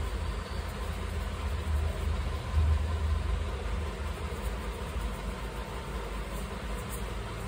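Steady low rumble with an even hiss over it, a little louder about two to three seconds in.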